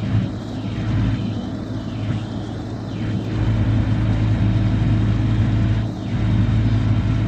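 Tow truck's engine running steadily with a low hum while its boom winch holds a car on a sling, louder from about three and a half seconds in, with a brief dip near the end.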